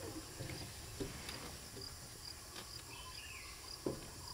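Quiet outdoor ambience: a faint high chirp repeats about every two-thirds of a second over a low background hum. A short call falls in pitch about three seconds in, and a sharp click comes near the end.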